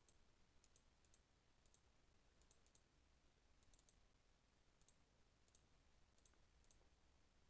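Near silence with faint computer mouse clicks, often in quick pairs or threes, about once a second.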